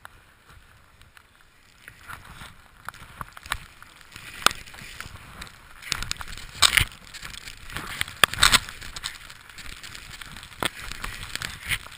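Skis running and turning through deep powder snow: a hissing rush of snow with sharp scraping spikes at the turns, the loudest two a little past halfway.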